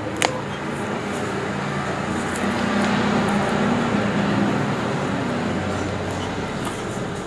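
A single sharp crack of a joint popping under a chiropractic spinal adjustment, just after the start, over a steady background rumble.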